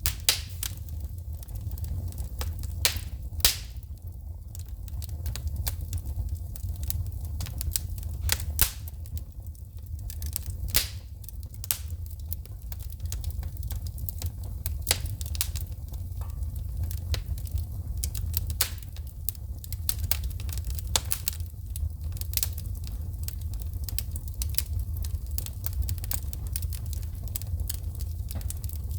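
Wood fire burning in a fireplace, crackling with irregular sharp pops and snaps of shooting sparks over a steady low rumble.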